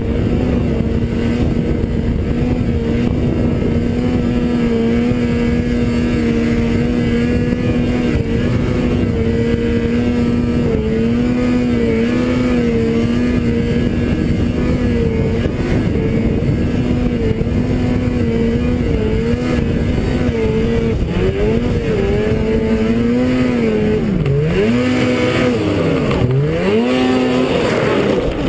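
Snowmobile engine running at a steady pitch that wavers slightly, over a constant rushing noise. Near the end its pitch drops sharply and climbs back, twice.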